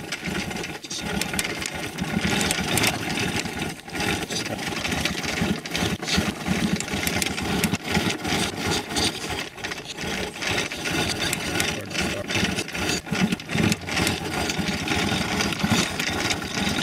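Yamaha PW50's 49 cc two-stroke single being kick-started over and over, the engine cranking with each kick of the kickstarter. The attempts are uneven and come in many short strokes.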